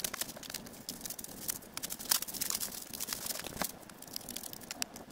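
A parcel's packaging being handled and opened: an irregular run of crinkling, rustling and small sharp clicks, with a louder crackle about two seconds in and another past three and a half seconds.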